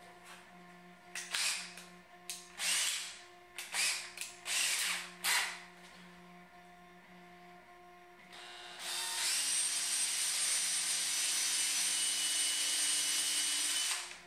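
Several short noises of handling, then a Makita cordless drill runs steadily for about five seconds and stops abruptly, pre-drilling a pilot hole for the 3D-printed latch in the plywood.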